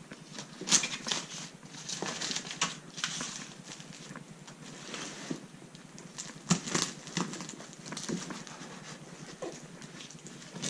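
Cardboard box and its packing being pulled open and handled: irregular rustling and scraping, with a few sharper knocks and taps.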